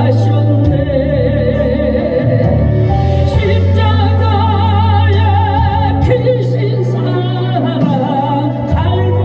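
A Christian worship song: a singing voice holding long notes with vibrato over steady bass accompaniment.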